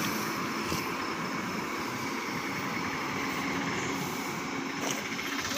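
Bus engine running steadily as the bus pulls away down the street, mixed with a steady hiss of outdoor street noise.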